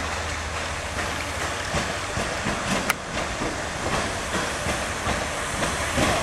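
TFC diesel-hydraulic railcar approaching along the platform. Its engine and running gear give a steady low hum, with one sharp click about three seconds in.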